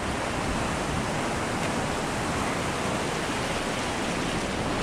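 Shallow ocean surf washing over the sand, a steady rushing hiss of water with no distinct breaks or splashes.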